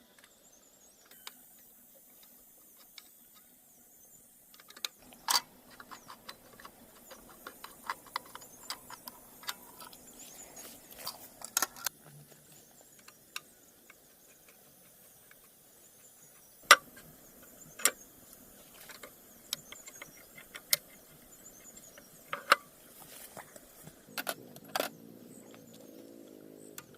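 Irregular sharp clicks and knocks of hard objects being handled, starting about five seconds in, with a few much louder knocks among them.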